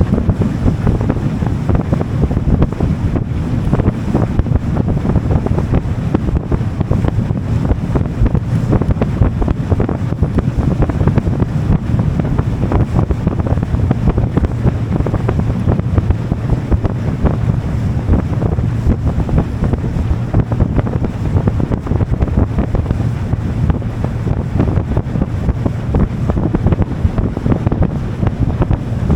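Heavy wind buffeting the microphone over a motorboat running steadily underway, with water rushing past the hull.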